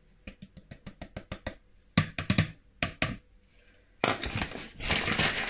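A fast run of light taps, then a few louder knocks, as flour is knocked out of a plastic measuring cup into a sieve over a plastic mixing bowl. A rustling noise starts about four seconds in.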